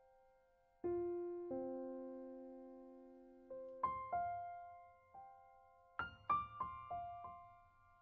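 Soft background piano music: a few slow notes and chords that ring out and fade, moving into a quicker run of notes about six seconds in.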